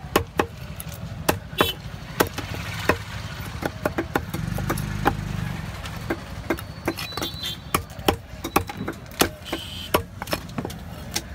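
A long curved fish knife chopping small trevally on a wooden log block: sharp knocks, irregular, a few a second. A motor engine runs behind it and grows louder for a couple of seconds about four seconds in.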